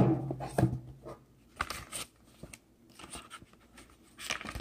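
Cardboard phone packaging being handled: a sharp knock as the inner paperwork tray comes out of the box, then light scrapes, taps and rustles as the cardboard sleeve is turned over in the hands.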